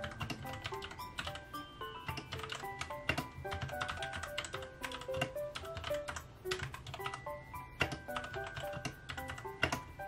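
Typing on a Royal Kludge RK61 mechanical keyboard: a fast, irregular run of key clicks as words are typed. Background music with a light melody plays along.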